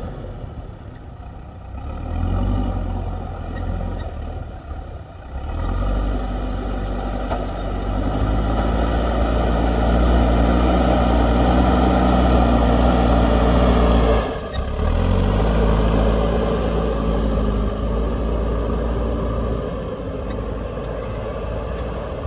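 Diesel engine of a JCB backhoe loader working hard, rising to its loudest as the front bucket is driven into a pile of soil, breaking off briefly a little past halfway, then running steadily and a little quieter toward the end.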